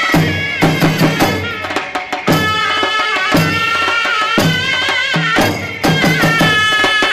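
Egyptian mizmar baladi (folk double-reed shawm) playing a loud, wavering, ornamented melody over repeated drum beats.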